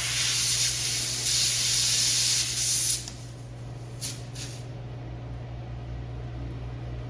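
Compressed air hissing out of a punctured car tire through the reamed plug hole, cutting off abruptly about three seconds in, followed by two short puffs of escaping air.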